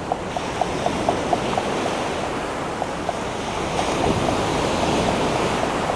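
Surf washing up the beach, with an Alvey sidecast reel clicking about four times a second as a whiting is wound in fast. A wave swells louder about four seconds in.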